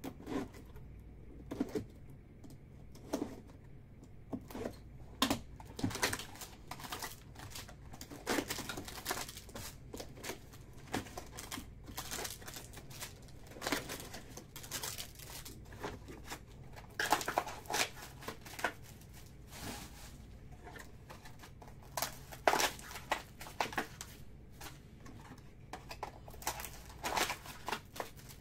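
Plastic wrap and cardboard of a trading-card hobby box being torn and opened, then wrapped packs being pulled out and handled, with irregular crinkling, rustling and snapping of plastic and card.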